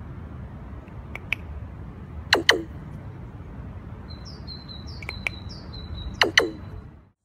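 Common raven making sharp clicking knocks in quick pairs, four pairs in all, the loudest about two and a half seconds in, with a run of four or five short high chirps a little later.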